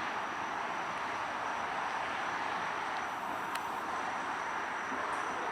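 Freight train rolling past on the rails, a steady, even rush of wheel and track noise with a faint high steady whine. A single sharp click comes about three and a half seconds in.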